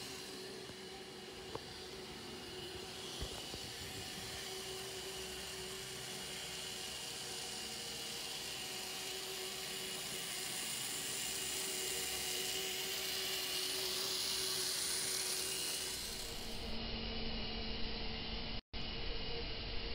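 Z-scale model locomotive running on the track, its tiny electric motor giving a steady whine that grows louder as it comes closer. Near the end this gives way to a low hum with small crackles.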